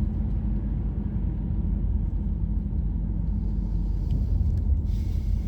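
Car driving: a steady low rumble of engine and road noise, with a faint engine hum.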